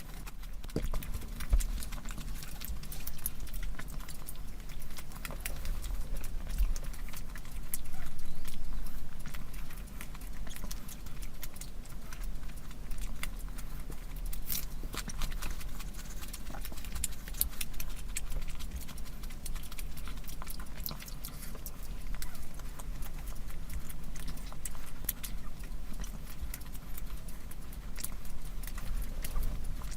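Close-miked eating sounds: chewing and mouth clicks, many short sharp clicks over a steady low hum.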